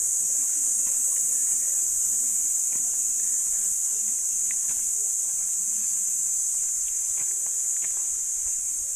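A chorus of insects making a steady, high-pitched drone, with a few faint ticks underneath.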